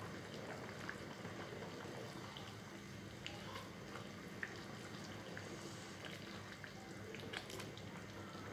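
Pot of rice, peas and potatoes in water simmering: faint steady bubbling with scattered small pops and ticks.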